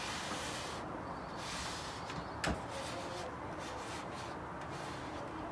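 Fingers rubbing and sliding a soap-wetted vinyl decal over a painted motorcycle fuel tank, in several soft strokes, with one sharp click about two and a half seconds in.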